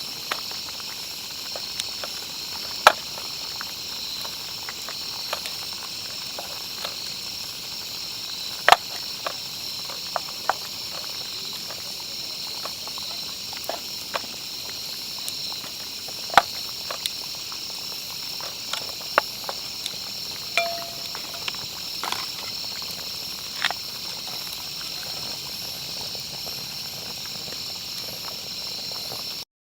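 A steady high-pitched chorus of crickets and other insects, with irregular sharp pops and crackles from a wood campfire scattered through it. A short pitched note sounds about twenty seconds in.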